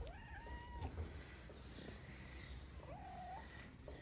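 Kitten mewing twice: a thin, high mew about a second long near the start and a shorter one about three seconds in.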